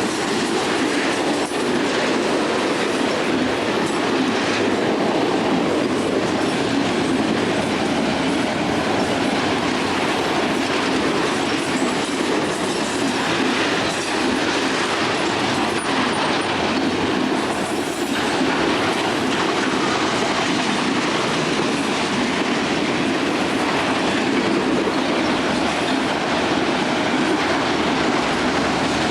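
A train's railroad cars rolling past in a steady rumble, with faint clicks as the wheels cross rail joints.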